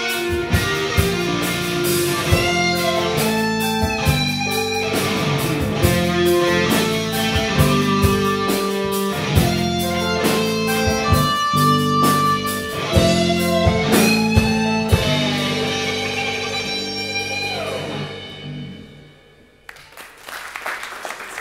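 A live rock band plays: electric guitar, bass, keyboard and drum kit. Near the end the song stops on a held chord that rings and fades away.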